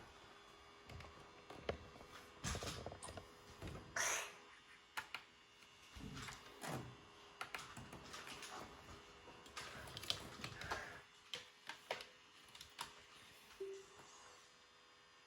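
Faint, irregular clicks, taps and short rustles, like small objects being handled at close range.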